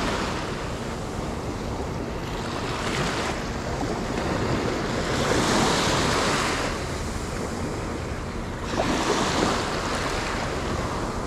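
Sea surf washing in, swelling and easing in three broad surges, with wind buffeting the microphone.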